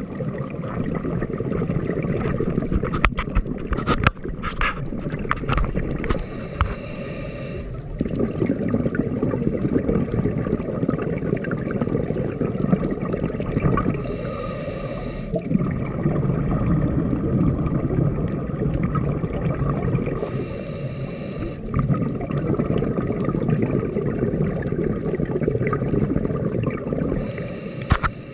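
Scuba diver breathing through a regulator underwater: a hissing inhale four times, about every seven seconds, with a low gurgling rumble of exhaled bubbles between. Two sharp clicks a few seconds in.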